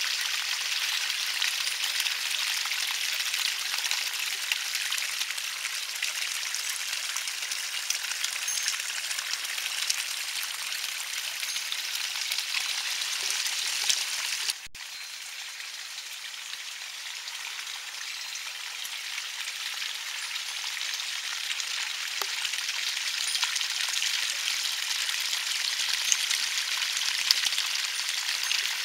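Water trickling over pebbles in a small garden stream: a steady hiss with fine patter. It drops abruptly in level about halfway through, then slowly grows louder again.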